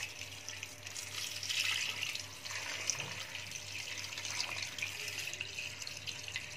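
Water poured in a steady stream into an aluminium pressure cooker, splashing onto the fish and the liquid already in the pot.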